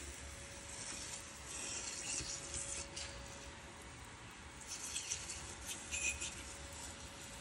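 Automatic transmission fluid spattering and dripping as it runs off a car gearbox's exposed valve body into a drain tray. There are two heavier spells of hissing spatter, about a second and a half in and again around five seconds.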